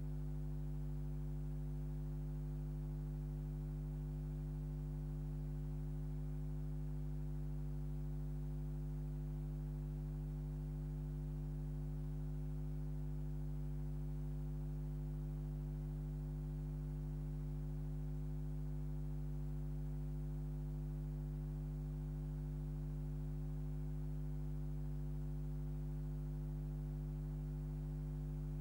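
Steady electrical mains hum: a low buzz with a stack of overtones, unchanging in pitch and level.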